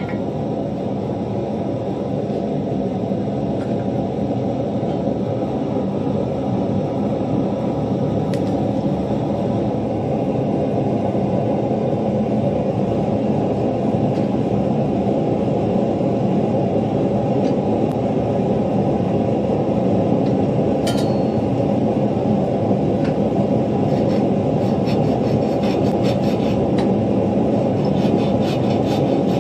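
A blacksmith's forge running with a steady, even rushing noise while the workpiece heats, with a few faint ticks of metal in the last few seconds.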